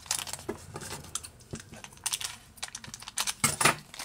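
Thin clear plastic bag crinkling and crackling as fingers work it open around a small toy figurine, in irregular short bursts, loudest about three and a half seconds in.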